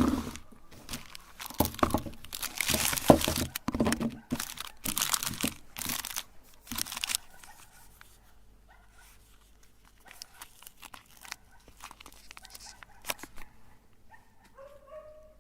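A meat grinder crunching and shredding soap: dense crackling and tearing for about the first seven seconds, then thinning to scattered crackles. A short high whine comes near the end.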